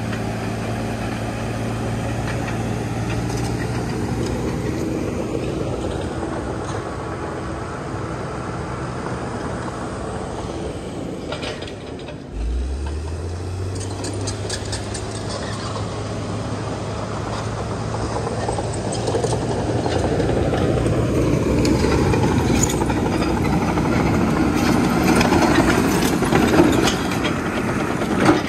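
The Cummins 5.9 diesel of a 1997 Dresser TD12-CXP crawler dozer running steadily. About halfway through the engine speed rises, and near the end it grows louder as the machine comes close, with the clank and squeal of its steel tracks.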